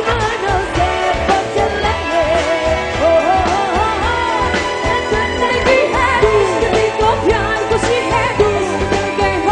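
Live band music: a singer's ornamented, gliding melody over drums, bass and other instruments, with a steady beat.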